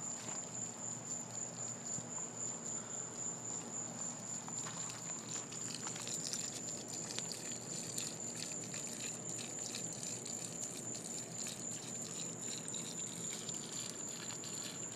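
Dog urinating a long, steady stream onto gravel: a continuous trickle and patter of liquid on stones, with a steady thin high-pitched tone behind it.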